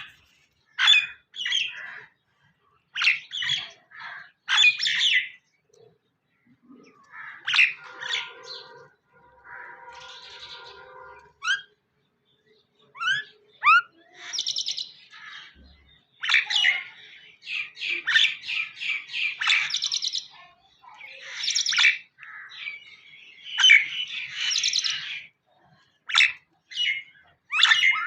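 Birds chirping and calling in quick runs of high chirps and trills with short gaps, with a lower, buzzier call lasting a few seconds about a third of the way through.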